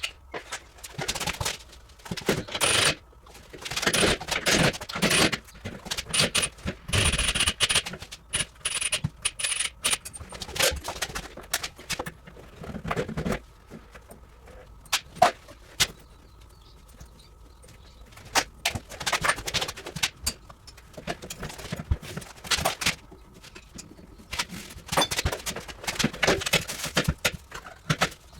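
Irregular metallic clanking, knocking and rattling of tools and metal parts being handled during dismantling work. There is a bright jingling in the first few seconds and a quieter lull about halfway through.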